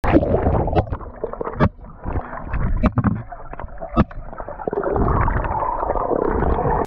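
Underwater sound from a camera submerged in a swimming pool: muffled gurgling and bubbling of swimmers' breath and moving water, with a few sharp clicks.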